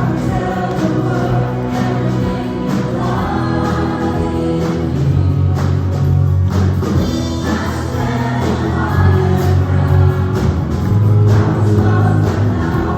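Group of voices singing a Christian worship song in chorus over instrumental accompaniment with a steady bass line and a beat.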